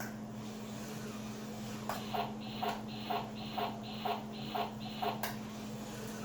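Battery-powered toy mechanism clicking and whirring in an even rhythm of about two strokes a second. It starts about two seconds in and stops with a sharper click near the end, over a steady low hum.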